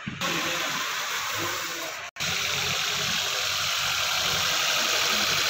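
Maruti Suzuki petrol engine idling steadily, running so that its fuel injectors' operating sound can be checked with a sound scope. The sound breaks off for an instant about two seconds in.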